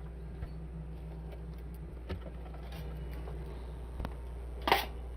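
Faint clicks and taps of a metal equipment case being handled and opened, over a steady low hum, with one brief scrape about four and a half seconds in.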